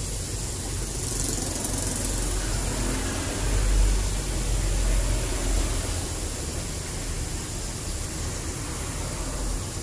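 A motor vehicle passing on the street, a low rumble that swells about three and a half seconds in and fades by about six seconds, over steady outdoor hiss.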